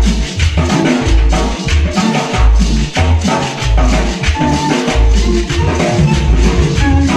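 Ecuadorian cumbia music: an electronic organ melody over a steady, pulsing bass line and percussion.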